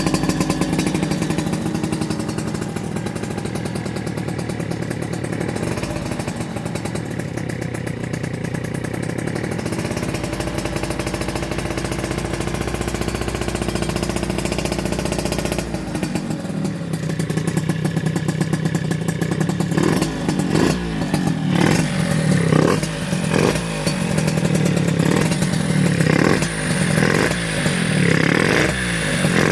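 Yamaha RZ50 two-stroke single running through a BEET expansion chamber, idling steadily at first, then from about 20 seconds in blipped repeatedly, short quick throttle blips about one a second with the engine note jumping up and falling back each time.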